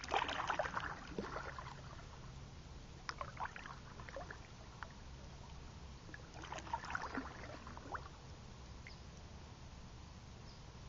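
Kayak paddle dipping into calm river water in three splashy strokes about three seconds apart, each followed by dripping; no strokes after about eight seconds in.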